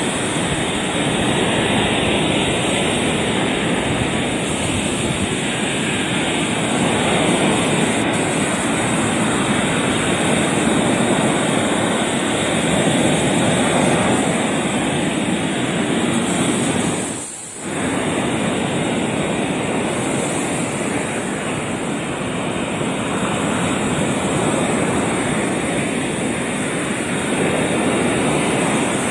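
Sea surf breaking and washing over a rocky shore: a steady, loud rush of waves, with a brief drop about two-thirds of the way through.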